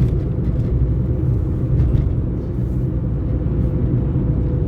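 A car driven slowly, heard from inside the cabin: a steady low rumble of engine and road noise with a faint steady hum.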